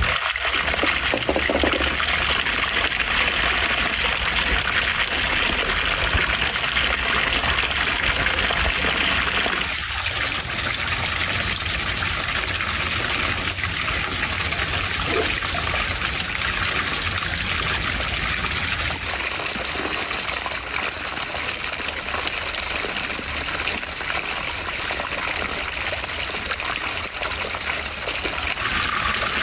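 Water pouring steadily from a stacked-stone garden fountain and splashing onto the stones of a shallow pool, its sound shifting a few times.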